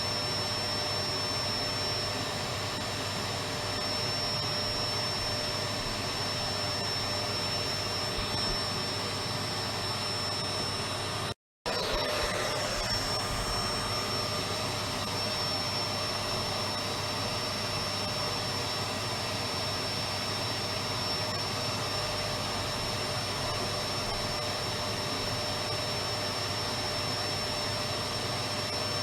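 Electric vacuum cleaner running steadily, a constant rushing noise with a high steady whine from its motor. The sound cuts out completely for a split second about eleven seconds in, then carries on unchanged.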